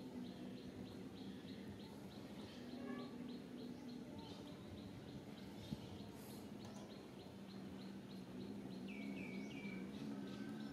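Faint outdoor ambience: a bird calling in a steady series of short high chirps, several a second, with a few falling chirps about nine seconds in, over a low steady hum.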